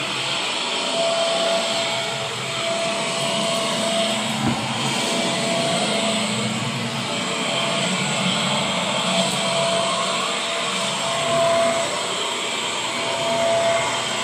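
Bagless upright vacuum cleaner running steadily as it is pushed back and forth over carpet, its motor whine joined by a thin steady tone that comes and goes.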